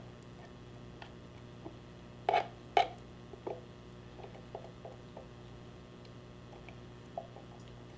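Spatula scraping thick pureed mustard out of a blender jar into a small glass jar: two sharp knocks a little over two seconds in, then softer scrapes and small taps, over a low steady hum.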